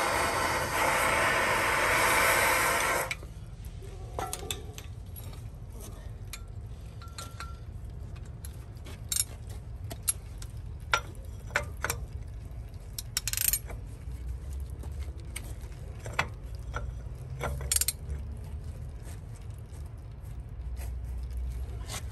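A compressed-air blow gun hisses into a truck wheel hub for about three seconds, then cuts off. Scattered metal clinks and taps follow as parts are handled and fitted at the hub, over a low steady hum.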